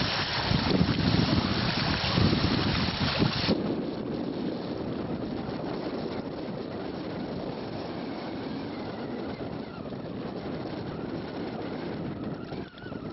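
Wind buffeting a camcorder microphone. It gusts loudly for the first three and a half seconds, then cuts off abruptly to a softer, steady hiss.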